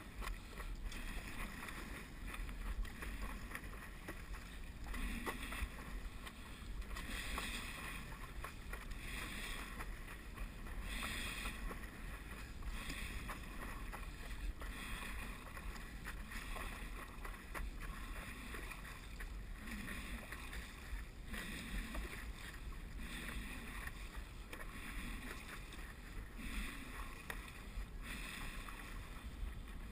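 Stand-up paddleboard paddle strokes, about one every two seconds: each one a short splashing swish as the blade catches and pulls through the water, with water washing along the board's nose.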